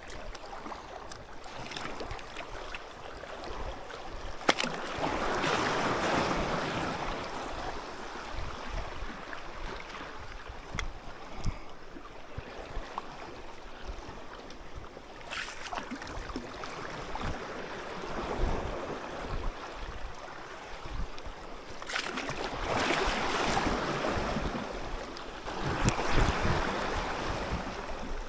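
Sea waves washing in, swelling about five seconds in and again near the end, with wind buffeting the microphone. A few sharp clicks stand out.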